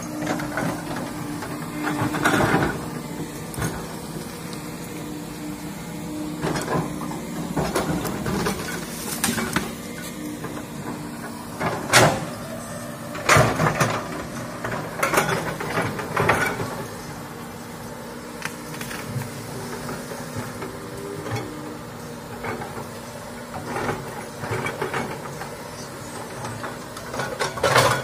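Komatsu hydraulic crawler excavator's diesel engine running steadily as it works, with repeated sharp cracks and knocks, several loud ones in the middle and one near the end.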